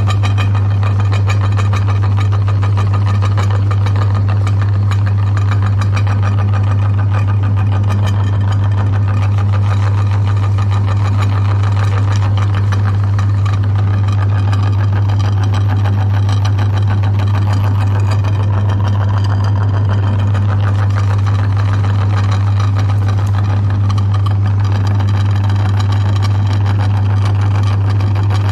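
Electric meat grinder running steadily with a loud, constant low hum, grinding ice cream bars.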